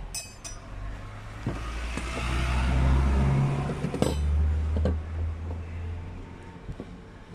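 A motor vehicle's engine running, its low rumble swelling to a peak around the middle and then fading, with a couple of sharp metallic clicks.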